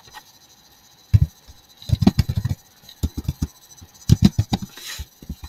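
Typing on a computer keyboard: a single keystroke about a second in, then three quick runs of key clicks with short pauses between.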